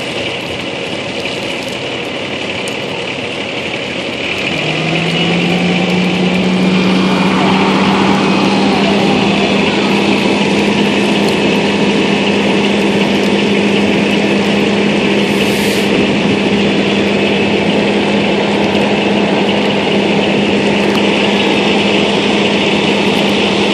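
Fire engine's engine running, throttling up about four to five seconds in and then holding steady at the higher speed.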